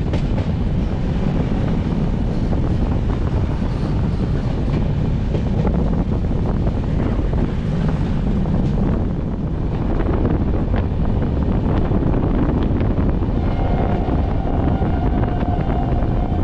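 Darjeeling Mail express train running at speed, heard from on board: a loud, steady rumble of wheels on the rails mixed with rushing wind and scattered clicks. About 13 seconds in, a steady high tone sets in and holds.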